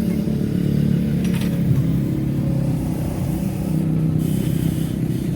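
A machine running with a steady low hum, with a faint click about a second and a half in.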